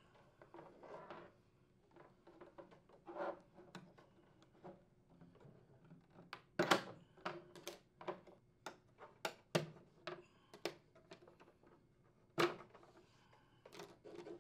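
Plastic vertical louver fins being pried and unsnapped from an air conditioner's horizontal louver: a scattered string of light plastic clicks and taps with soft handling sounds, several sharper snaps in the second half.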